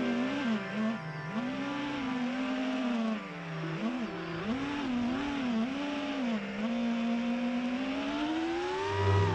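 FPV racing drone's brushless motors (Emax Eco on three-blade 5-inch props) whining. The pitch swoops up and down several times in quick succession as the throttle is worked, holds steady for a moment, then climbs steadily near the end.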